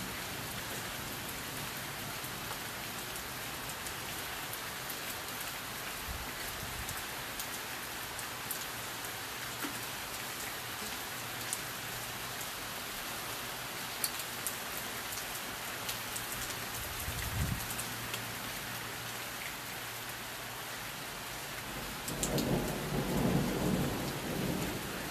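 Steady rain falling in a thunderstorm, with a low rumble of thunder for a couple of seconds near the end.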